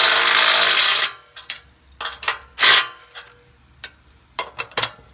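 Cordless impact driver hammering a nut and bolt tight on a steel bracket for about a second, then a second short burst a little before the middle. Scattered sharp clicks and clinks of metal follow.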